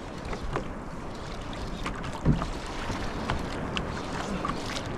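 Water sloshing against a kayak hull, with scattered small knocks and a louder low thump about two seconds in.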